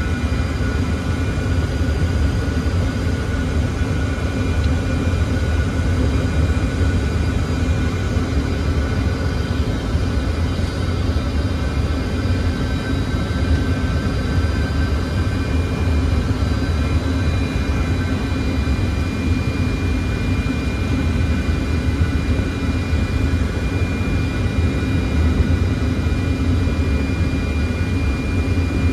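Steady cockpit noise of a Fokker 100 airliner in flight: a low rumble of airflow and its two rear-mounted Rolls-Royce Tay turbofans, with a few faint steady high whining tones.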